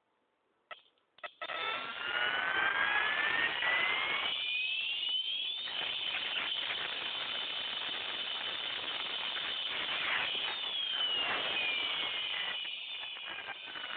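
Electronic jet-takeoff siren module for a motorcycle or scooter, sounding through its speaker: two short blips, then a rushing jet-like hiss with a whistle that rises steadily in pitch over about four seconds, holds high, and glides back down near the end. Very high-toned and unpleasant.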